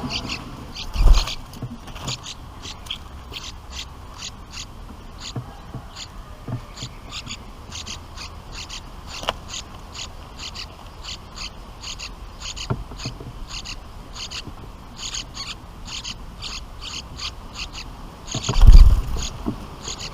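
Bulbul nestlings' begging calls: short high chirps repeated two or three times a second, in runs with brief pauses. A low thump about a second in and a louder low rumble near the end.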